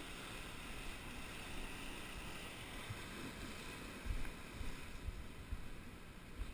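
Surf washing against coastal rocks, heard as a steady rushing hiss, with wind on the microphone; from about four seconds in, irregular low thumps buffet the microphone.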